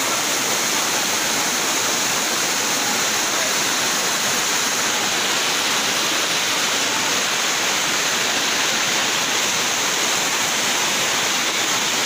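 Steady rush of water from a small waterfall and the shallow, rocky stream below it.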